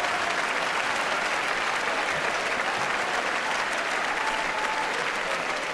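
Large theatre audience applauding, steady and dense, starting to die down near the end.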